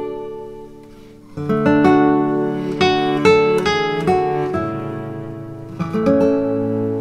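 Background music: acoustic guitar plucking a melody note by note. It thins out about a second in, then picks up again.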